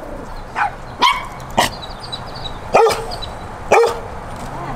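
Dog barking: five sharp barks, unevenly spaced, over a little under four seconds.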